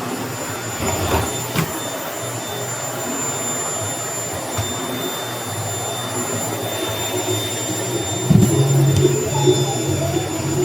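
Vacuum cleaner running steadily with a thin high motor whine, a couple of sharp knocks about a second in, and louder low rumbling from the nozzle on the floor near the end.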